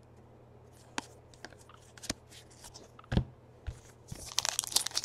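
Trading cards handled and set down on a stack, giving a few light clicks and a soft thump, then a foil card pack's wrapper starts to crinkle about four seconds in.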